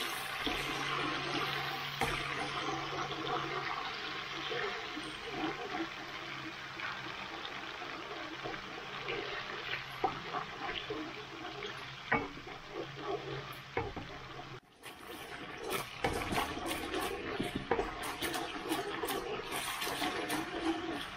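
Garlic, ginger, oyster sauce and dried chillies sizzling in a hot wok, with a spatula scraping and knocking against the pan as they are stirred.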